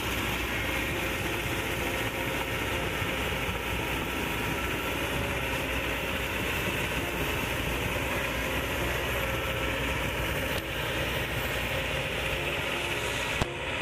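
Diesel engine of a Kobelco SK200 hydraulic crawler excavator running steadily as it digs and lifts mud, with a brief dip in level about ten and a half seconds in.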